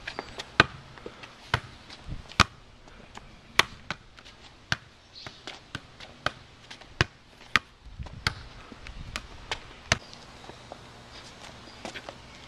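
A soccer ball being juggled: a string of sharp, irregular taps, about one or two a second, as the ball is struck by feet, thighs and head.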